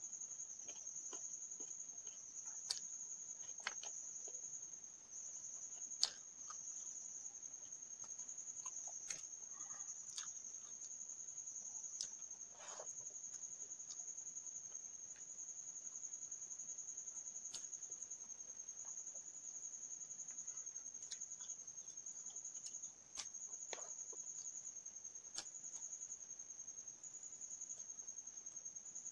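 Eating rice and curry by hand: fingers mixing food on a plate and chewing, heard as scattered short clicks and smacks over a steady high-pitched trill.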